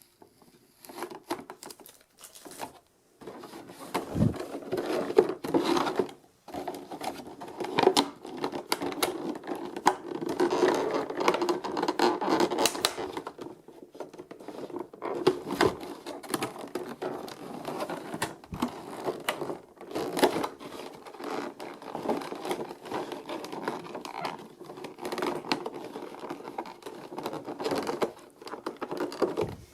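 Hands unpacking a boxed figure: irregular rustling, scraping and clicking of packaging, with a few sharper knocks and brief pauses.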